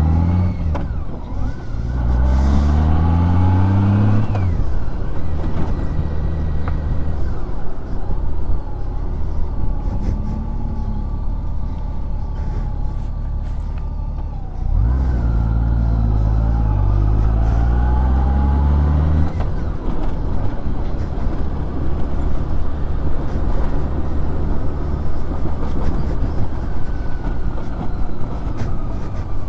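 Honda Gold Wing motorcycle engine accelerating, its pitch climbing in two long pulls, about two seconds in and again about fifteen seconds in, each cutting off abruptly. Between and after the pulls it runs steadily under a constant rush of wind noise.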